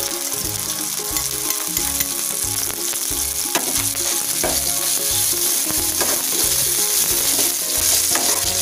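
Chopped onion, green chillies and spice pastes sizzling in hot oil in a frying pan, stirred with a spatula. The hiss is steady throughout.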